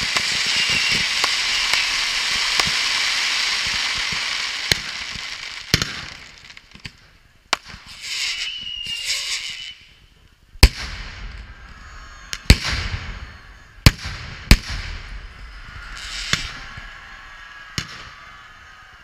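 Firework fountains spraying with a steady loud hiss and crackle, which fades out about five seconds in. Then about ten separate sharp firework bangs follow, the loudest in the middle stretch, with a brief whistle among them.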